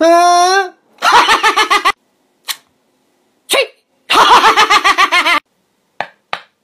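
Comic vocal noises: a brief wavering high-pitched tone, then two runs of rapid staccato laugh-like pulses, with short squeaks between them.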